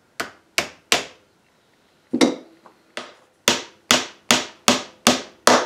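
A hammer tapping a small nail into a plywood block: three quick blows, a pause of about a second, then a steady run of taps about two and a half a second.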